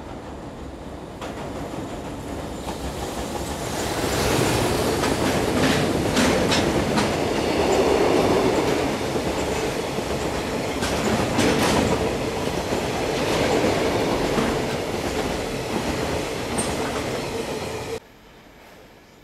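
Freight train of oil tank wagons behind an EF210 electric locomotive rolling over a steel truss railway bridge: a loud rumble of wheels on the bridge with repeated clacks as the wheels cross rail joints, building up as the wagons pass close. It cuts off suddenly about a second before the end, leaving a much quieter, distant train sound.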